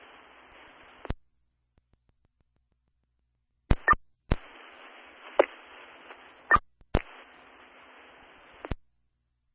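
Fire department radio channel heard through a scanner, keyed up without speech: short stretches of static hiss, each cut off by a squelch click, with a few brief chirps and clicks between stretches of dead silence.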